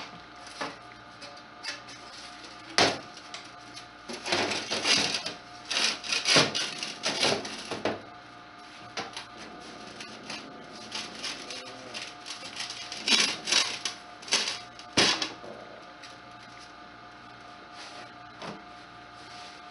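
Metal stovepipe scraping, rubbing and knocking as it is worked back into the opening in a brick chimney, in irregular bursts with a few sharp knocks.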